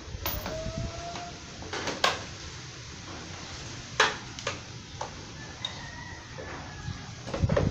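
Sharp clicks and knocks from the plastic front fairing of a Kymco Super Z 125 scooter as it is worked into place by hand. The loudest come about two and four seconds in.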